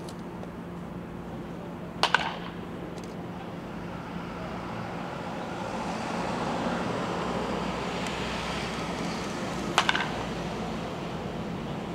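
A baseball bat striking pitched balls in a netted batting cage: two sharp cracks, one about two seconds in and one near the end, each a quick double strike.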